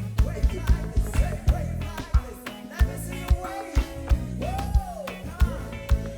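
Gospel band playing reggae: bass and drum kit keep a steady beat under a bending lead melody line.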